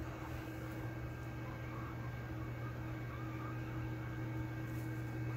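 Hot-air rework station blowing at minimum air volume, a steady hum with a soft hiss of air while it heats solder paste under a small surface-mount chip.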